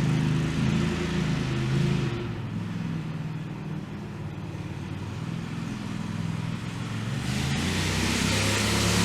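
Tractor engine running under load while pulling. It drops in level about two seconds in and comes back louder with a hiss about seven seconds in.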